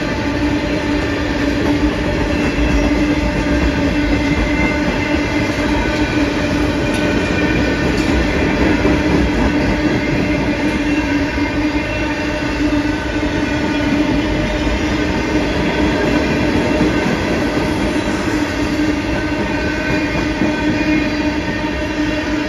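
Freight train of tank cars rolling steadily past at speed: continuous rumble and rush of steel wheels on rail, with a steady low tone running through it.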